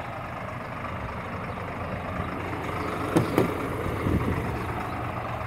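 Truck engine idling steadily, with two brief sounds of the cab door being opened a little past three and four seconds in.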